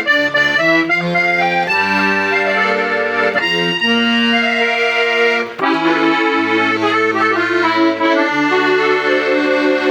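Hohner Concerto 1 accordion being played: a melody over held chords and bass notes, with a short break about five and a half seconds in before the playing resumes.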